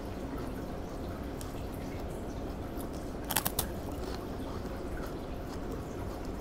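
Crisp sugar cream cracker being chewed, with faint crunching ticks. A quick run of three or four sharp crackles about halfway through.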